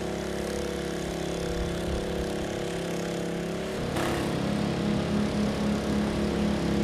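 Small engine of a portable water pump running steadily as it pumps out floodwater. About four seconds in the tone changes abruptly and takes on a pulsing beat.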